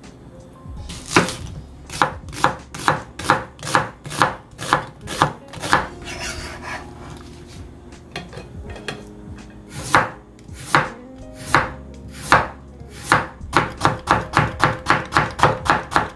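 Kitchen knife chopping vegetables into thin strips, each stroke a sharp knock of the blade on the cutting surface. The strokes come about two a second, pause, resume more slowly, then quicken to about four a second near the end.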